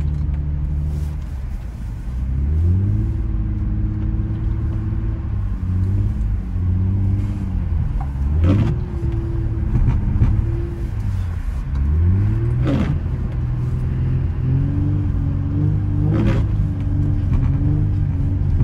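Infiniti G35 coupe's 3.5-litre V6 engine pulling through a drift on snow. The revs climb, hold and fall again and again, with a sharp dip and recovery about every four seconds.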